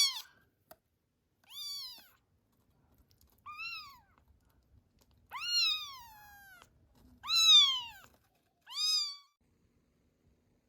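Very young kitten meowing: five high-pitched, rising-and-falling cries about two seconds apart, the fourth one longest.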